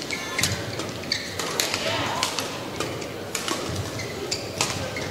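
Badminton rally: the shuttlecock struck back and forth with rackets, sharp hits roughly every half second to a second, over a murmur of voices in the hall.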